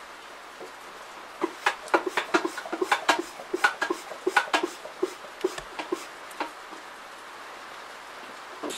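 Oil gurgling and dripping up into the cylinder head of a Ford 5.0L Coyote V8 as it is pressure-primed through the oil filter port, heard through the open oil filler hole. It is a quick, irregular run of small wet ticks and pops lasting several seconds, then it dies away. Oil reaching the head is the sign that the oiling system is priming.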